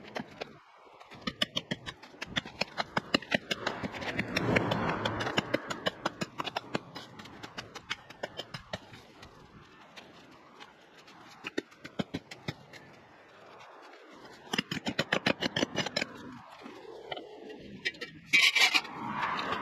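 Scraping and clicking from garden cleanup work, coming in runs of rapid clicks.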